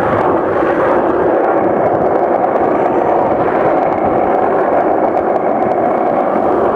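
Skateboard wheels rolling fast on asphalt: a loud, steady rumble and hiss of road noise.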